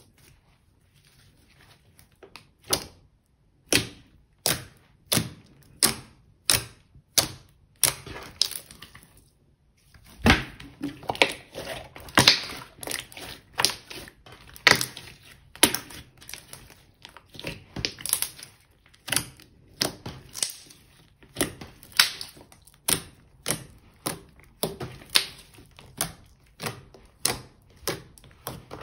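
Hands pressing and poking a thick, glossy slime spread flat on a table, each press giving a sharp sticky pop or click. The pops come about one or two a second, with a denser run of crackling pops in the middle.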